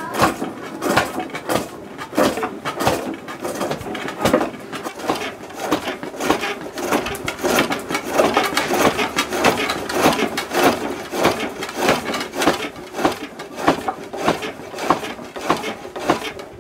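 Double spring pole lathe in use: a steel turning tool cutting a spinning wooden workpiece, in repeated short strokes about one and a half a second as the treadle drives the work back and forth.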